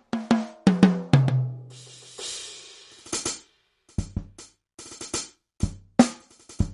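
NUX DP-2000 electronic percussion pad playing its jazz drum-kit sounds under drumsticks. A quick fill of drum hits falls in pitch, a cymbal crash rings about two seconds in, and a kick-and-snare groove starts about four seconds in.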